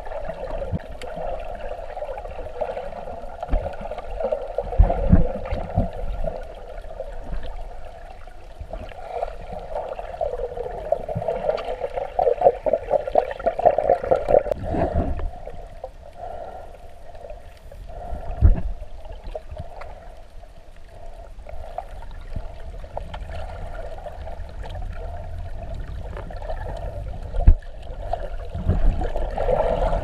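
Muffled underwater water noise around a submerged camera: a steady, wavering wash with a few low thumps, the loudest near the end.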